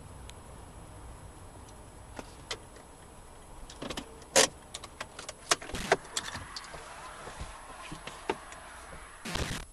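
Inside a car's cabin: the car slows to a stop, then a run of sharp latch clicks and knocks as a car door is opened, outside noise coming in, and the door is shut with a heavy thud near the end, after which it goes quieter.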